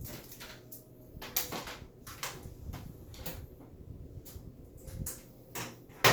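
Scattered clicks and knocks of computer case parts being handled, with one sharp knock at the very end.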